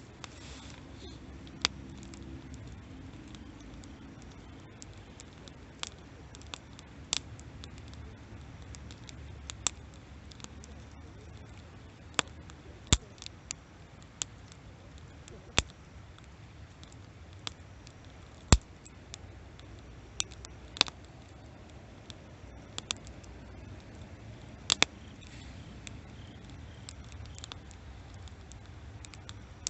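Wood campfire crackling: sharp, irregular pops, one every second or two, over a low steady rumble.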